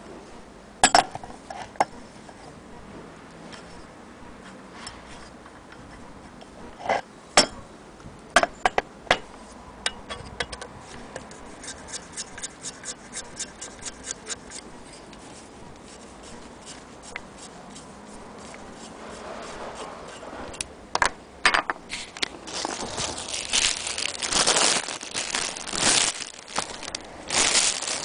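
Handling noise on an antique Willcox & Gibbs hand-crank sewing machine while a screwdriver is used on its hand-wheel crank handle: scattered sharp metal clicks and knocks, then a run of light rapid ticks, then louder scraping and rustling toward the end.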